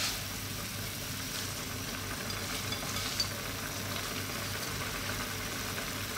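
Adobo sauce bubbling and sizzling steadily in a wok while handfuls of water spinach are dropped in, with a few faint ticks.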